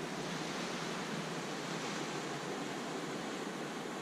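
Lake Superior surf washing on the shore below, a steady even rush of water.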